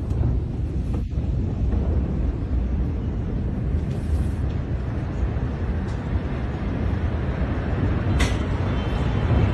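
Steady low rumble of a huge explosion's aftermath, picked up by a phone microphone, with a short sharp crackle near the end.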